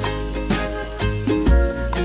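Upbeat background music with plucked ukulele- or guitar-like strings over a bass line, in a steady rhythm.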